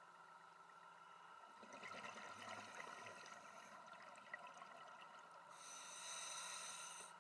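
Scuba diver breathing underwater through a regulator: a bubbling exhale starting about a second and a half in, then the hiss of an inhale from about five and a half seconds until just before the end.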